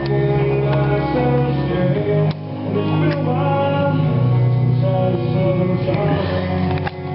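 Background music: a song with guitar, bass and singing.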